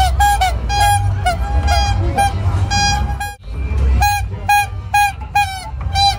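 Toy horns on a kiddie-ride car honked over and over in short beeps, about two a second, over a low rumble from the ride. There is a brief pause a little past three seconds in.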